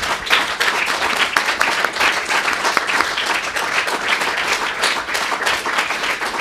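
Audience applauding: many hands clapping at once at a steady level.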